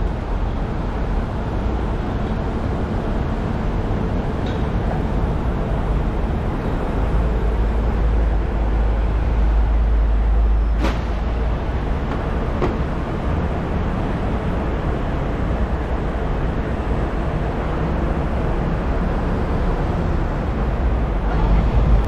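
Steady rumble of road traffic and idling bus engines, with a deeper low rumble setting in about seven seconds in. Two sharp knocks near the middle.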